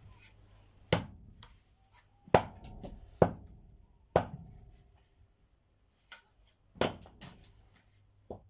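Firewood being chopped or split with an axe: a series of sharp blows at uneven spacing, roughly one a second, a few of them leaving a brief ringing tone.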